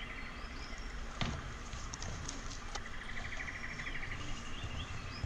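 Jungle ambience of birds chirping, with a rapid rattling trill near the middle and a single sharp click about a second in.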